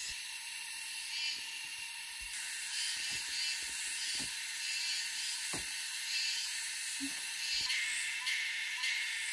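Forest ambience: a steady high-pitched hiss of insects, with a few soft snaps and rustles of footsteps and handled stems, and a faint repeated chirp about twice a second near the end.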